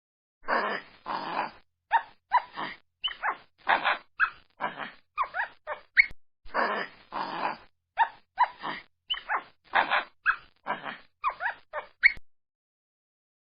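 An animal calling in a long run of short, separate calls, two or three a second, several of them rising in pitch, stopping about twelve seconds in.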